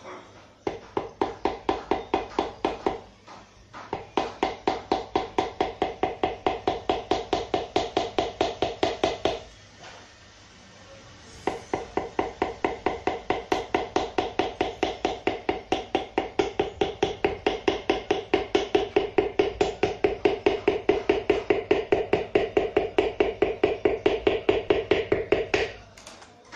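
A piston being tapped down into its cylinder bore in a Hyundai Atos engine block with a wooden hammer handle. Quick, light taps come about five a second, each with a metallic ring, in three runs broken by short pauses about 3 and 10 seconds in.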